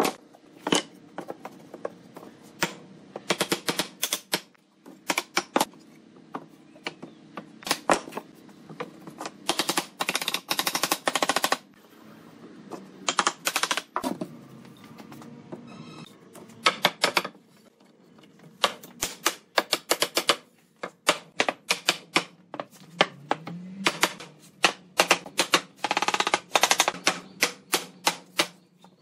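Rapid runs of sharp knocks and taps on wood, coming in bursts of several strikes with short pauses between them.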